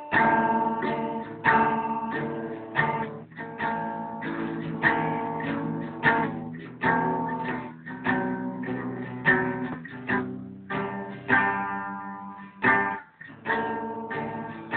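Acoustic guitar strumming chords in a slow, even rhythm, a sharp strum about every three quarters of a second with the chord ringing on between strums.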